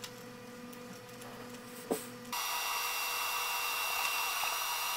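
Faint low electrical hum with a small click. About two seconds in, it changes abruptly to a steady hiss with a high-pitched whine, the background noise of the microscope repair-bench recording.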